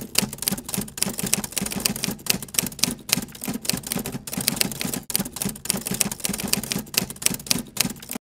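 Typing sound effect: rapid, irregular typewriter key-strike clicks, several a second, that start abruptly and cut off suddenly near the end.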